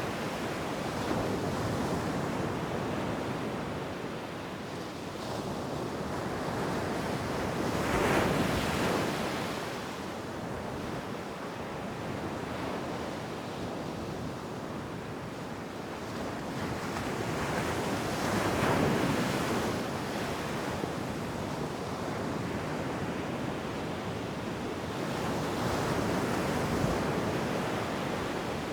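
Ocean surf on a beach: a continuous rushing wash with a wave breaking and swelling about every ten seconds, three times.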